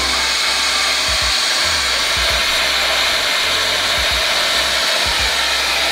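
Electric hand drill running steadily under load, its bit boring out the cam-seal oil drain-back hole in a new Toyota 2JZ aluminium cylinder head, a hole left not fully drilled at the factory.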